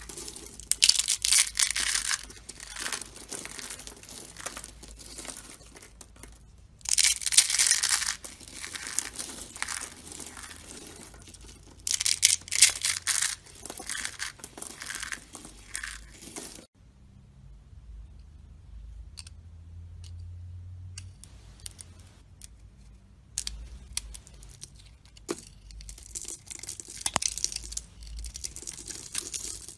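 A knife cutting and scraping into dry soap, with crumbly, crackling strokes in bursts. About two-thirds through, the sound cuts off abruptly to a quieter stretch of scattered small clicks and cuts, then the scraping picks up again near the end.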